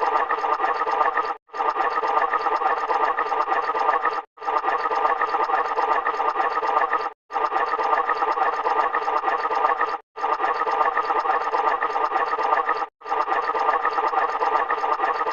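A short sound effect played over and over in a loop, each repeat about three seconds long and split from the next by a brief silent gap; it sounds dense and noisy rather than like clear speech.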